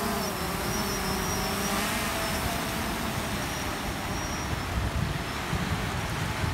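Quadcopter drone's propellers humming as it flies out over the surf carrying a fishing line and bait, the hum fading over the first couple of seconds as it moves away. Surf and gusts of wind on the microphone fill the rest.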